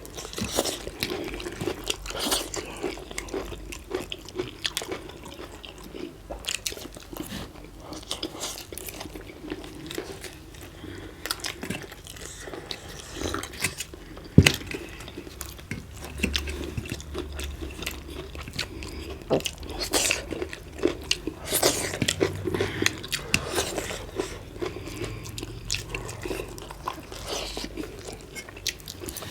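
Spicy chicken momo dumplings being eaten fast: biting, chewing and mouth sounds with irregular sharp clicks.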